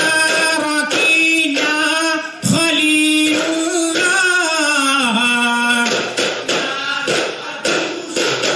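Men singing a Duffmuttu song, long held notes that slide in pitch, while daf frame drums are struck by hand. The drum strokes come thicker and faster about six seconds in.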